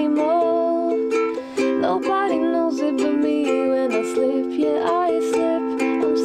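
Ukulele strummed in steady chords, with a woman singing a slow melody along with it.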